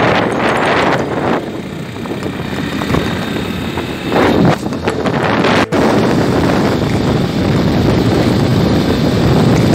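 Wind rushing over the microphone of a moving motorcycle, with the bike's engine and tyre noise running underneath. The wind surges in gusts near the start and again about four seconds in, and the sound cuts out for an instant a little past halfway.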